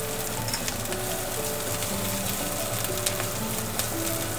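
Onion paste and chopped green chillies sizzling in mustard oil in a frying pan, with a steady hiss and fine crackles as a wooden spatula stirs them. Background music of slow held notes plays along.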